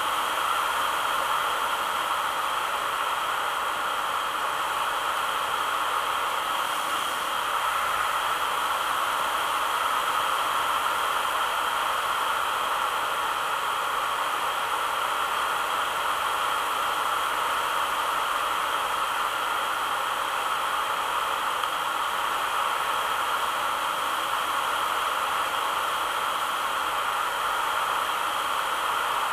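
Steady, even rushing hiss of air streaming past a model plane's onboard camera in flight, unchanging throughout.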